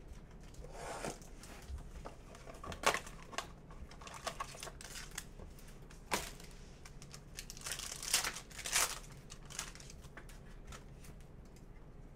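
Crinkling and tearing of trading-card pack wrappers and the box being handled as a box of Panini Prizm Choice basketball packs is opened and a pack is ripped open, in short irregular rustles with a few sharp clicks, the longest rustling about eight seconds in.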